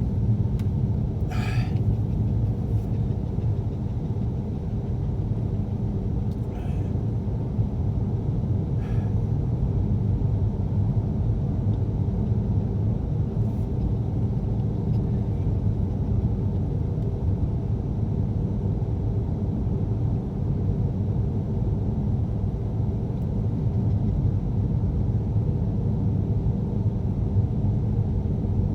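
Steady low rumble of a car's engine and road noise heard from inside the cabin while driving, with a few brief clicks in the first ten seconds.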